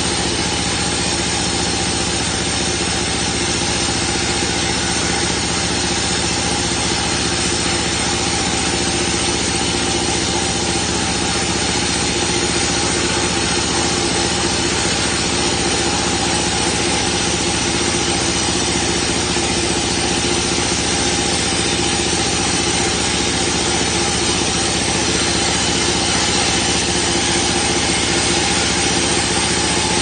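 Portable band sawmill's engine running steadily as the saw head travels along the log, cutting a board.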